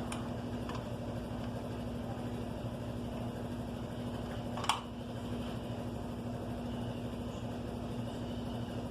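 Steady mechanical hum in a workshop, with two faint clicks near the start and one sharp click about halfway through as engine parts are handled on the bench.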